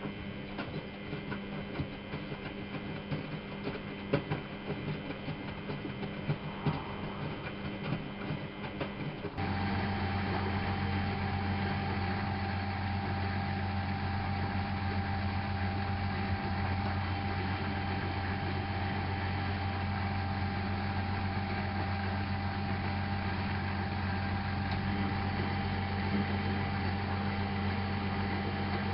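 Miele Novotronic W830 washing machine running, with a hum and irregular light knocks and clicks. About nine seconds in, a louder, steady hum with a held tone switches on abruptly and continues, as a motor or pump in the machine starts up.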